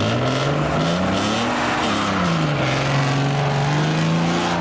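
Car engine revving hard as the car pulls away under power, the revs climbing, dropping back and then holding steady. The driven wheel spinning is the outside wheel.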